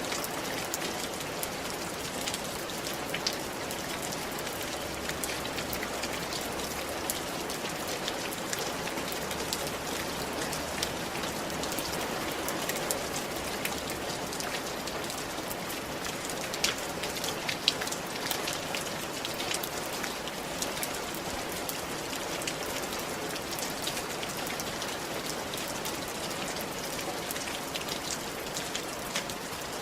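Steady rain falling, a constant hiss with many scattered drop impacts ticking on a hard surface.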